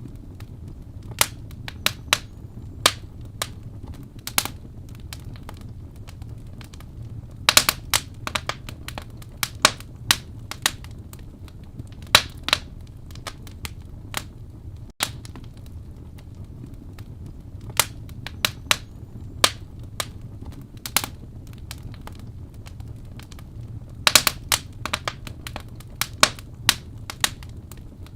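Wood fire burning in a fireplace: irregular sharp pops and crackles, some coming in quick clusters, over a low steady rumble of the flames.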